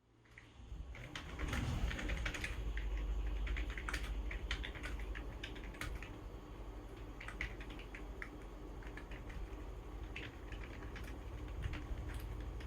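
Typing on a Zebronics ZEB-K20 keyboard: a quick, irregular run of key clicks and clacks, over a steady low hum.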